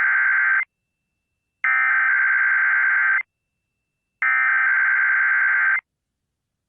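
Emergency Alert System SAME header tones: digital data bursts announcing the required weekly test and encoding its event, area and time for receiving equipment. One burst ends just after the start, then two more of about a second and a half each follow, with about a second of silence between them.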